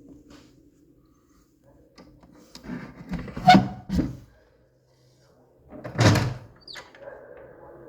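Faint, distant air raid siren tone that fades out just after the start and comes back faintly near the end. In between there are several loud, close thumps and knocks: two close together about three and a half seconds in, and one about six seconds in.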